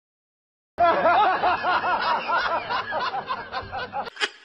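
Laughter sound effect: a long run of quick, repeated 'ha-ha' laughs that starts just under a second in and dies away near the end.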